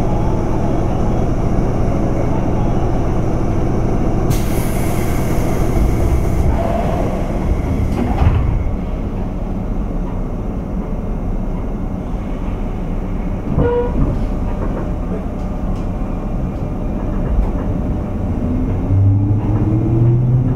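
Running sound inside a JR West 201 series chopper-controlled EMU's motor car: steady rumble of the train on the rails with a low hum, a brief burst of hiss about four seconds in, and a few clicks. Near the end the traction motor whine starts rising in pitch as the train accelerates.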